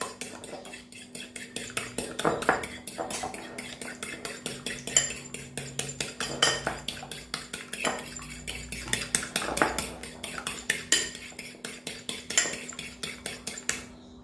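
Egg being beaten in a bowl with an eating utensil: fast, even clicking of metal against the bowl, several strokes a second.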